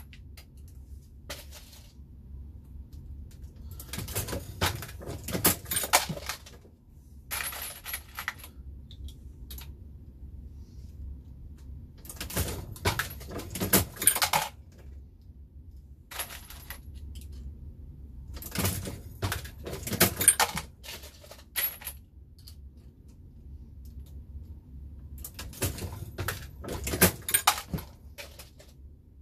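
Dillon Square Deal B progressive reloading press being cycled, with bursts of metallic clinking and rattling of brass cases and cartridges every few seconds.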